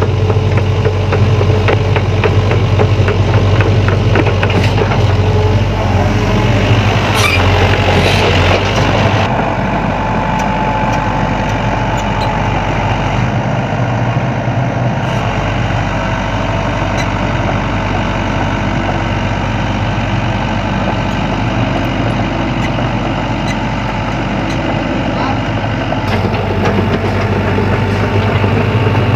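Sany hydraulic excavator's diesel engine running, with scattered clicks and knocks over the first third. It then drops to a quieter, steadier run and picks up again near the end.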